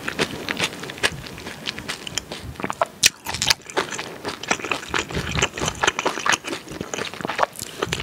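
A person chewing food close to the microphone with the mouth closed: a steady run of small, irregular clicks.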